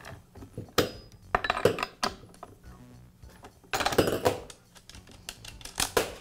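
Metal clinks and rattles of a wrench and loose chainsaw parts on a metal bench top as the side cover, bar and chain are worked off a Poulan Pro chainsaw, in several bursts with the loudest about a second in and again around four seconds.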